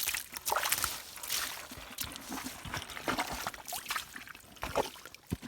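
Shallow muddy water splashing and sloshing in irregular bursts as hands grope through it for fish.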